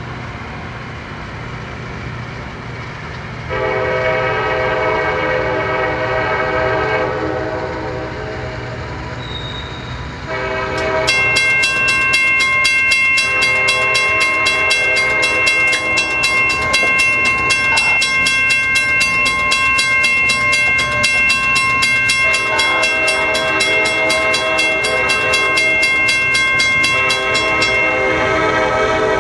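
CSX diesel freight locomotive approaching with its horn sounding a chord in long blasts: the first starts a few seconds in and trails off, and horn comes again from about eleven seconds in. A low engine rumble runs underneath, and from about eleven seconds in a grade crossing bell rings rapidly until near the end.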